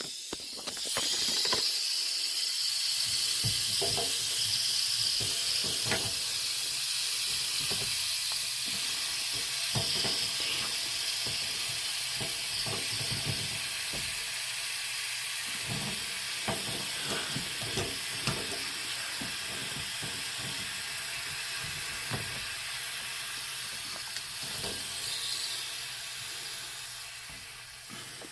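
Water and air hissing steadily out of a water heater's drain valve that will not shut off, with scattered clicks and knocks as the valve is worked and tightened. The hiss starts about a second in and eases off near the end.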